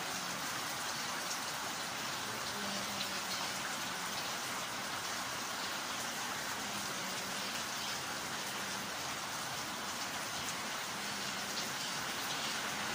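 Steady hissing noise with a faint low hum that comes and goes.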